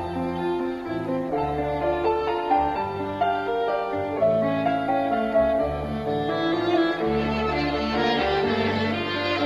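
Background instrumental music: bowed strings playing held notes over a slow, sustained bass line.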